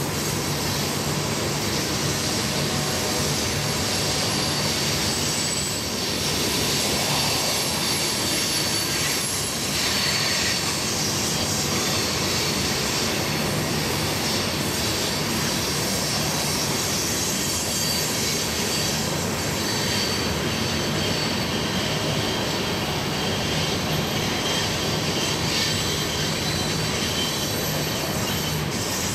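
A long train of railroad tank cars rolling steadily around a curve, the wheels rumbling on the rails. High-pitched flange squeal from the wheels on the curved track comes and goes throughout.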